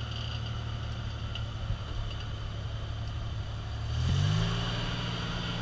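Lifted Toyota Tacoma pickup's engine pulling at low revs as it crawls up steep slickrock, then revving up about four seconds in and holding at the higher revs.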